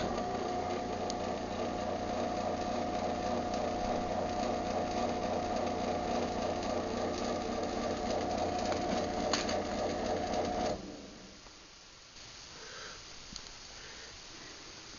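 Craftsman garage door opener's motor running steadily through a closing cycle, a constant hum that cuts off abruptly about eleven seconds in, when the opener reaches its close limit.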